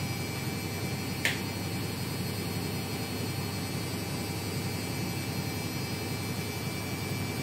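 Steady low electrical hum under a hiss of room noise, with one short sharp click just over a second in.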